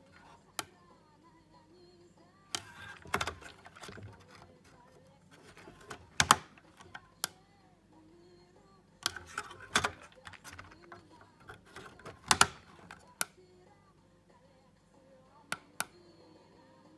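Scattered sharp clicks and taps in short clusters, some a few together, over faint background music.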